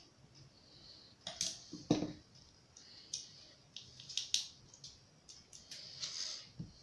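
Small metal clicks and knocks as a steel screwdriver and loose parts work against a black-powder revolver's frame during reassembly, with one louder knock about two seconds in and some rustling as the frame is handled.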